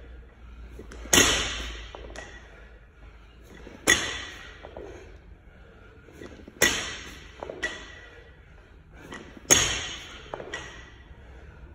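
Barbell loaded with 10 kg bumper plates dropped to a matted gym floor four times, about every three seconds. Each landing is a sharp thud with a short metallic ring from the bar and plates, and a lighter clank of the plates follows shortly after.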